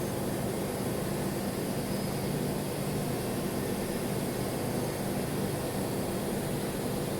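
Steady hum and hiss of a welding arc running on stainless steel, even and unbroken without crackle or pops.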